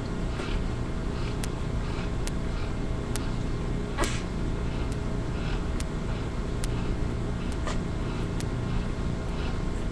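Two yellow Labrador puppies nursing: scattered sharp sucking clicks and soft wet smacks, one louder click about four seconds in, over a low steady rumble.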